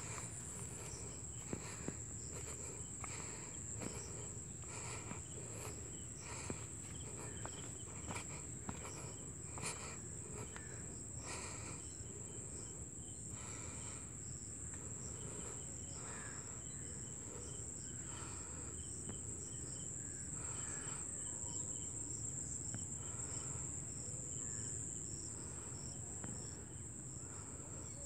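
Insects trilling in one continuous, steady high-pitched tone. Scattered light clicks and knocks come through, mostly in the first half.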